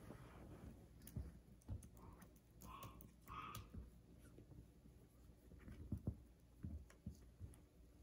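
Quiet typing and clicking on a laptop keyboard, with a few soft low thumps and a few short squeaks between about two and three and a half seconds in.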